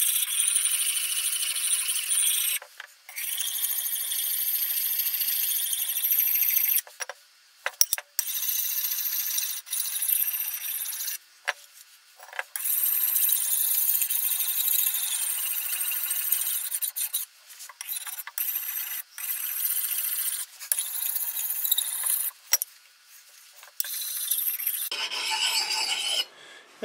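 A 600-grit diamond sharpening stone rubbed back and forth along a hatchet's edge, a continuous high scraping rasp of metal on the diamond face. It comes in long runs with about five short breaks, as the stone hons the file-cut bevel and works the burr.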